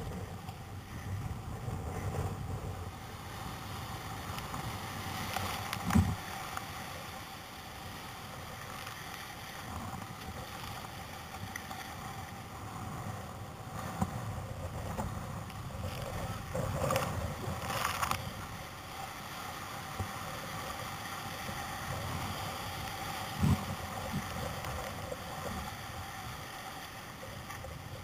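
Rough sea and breaking whitewater washing around a kayak, with a few sharp thumps of water against the hull, the loudest about six seconds in and again near the end.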